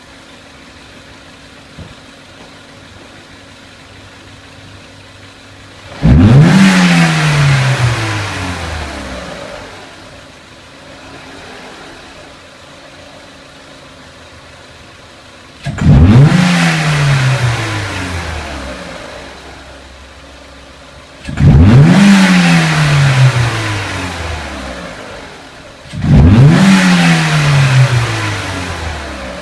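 Renault Clio 1.6 petrol four-cylinder engine idling, then revved with four sharp throttle snaps about a quarter, half and two-thirds of the way in and near the end. Each rev jumps up quickly and sinks back to idle over about three seconds.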